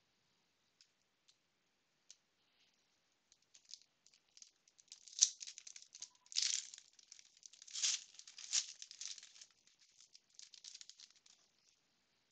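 Foil wrapper of a trading-card pack crinkling and tearing as it is opened by hand: a few faint ticks, then a run of crackly rustles starting about four seconds in, with several louder bursts, dying away near the end.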